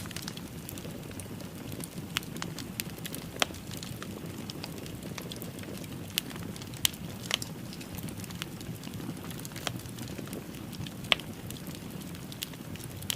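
Wood fire in a fireplace crackling, with a steady low hiss and scattered sharp pops and snaps at irregular intervals, a few louder than the rest.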